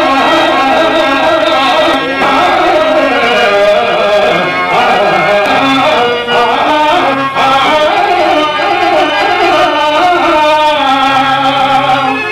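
Male stage actor singing a Telugu padyam (dramatic verse) in a long, ornamented Carnatic-style melody into a microphone, with instrumental accompaniment.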